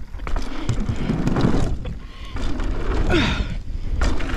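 Mountain bike rolling down a dirt trail: tyre rumble and rattling, with wind buffeting the microphone.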